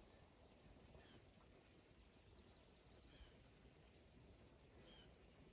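Near silence with faint outdoor ambience: a bird gives a short call about every two seconds over a faint insect chirring.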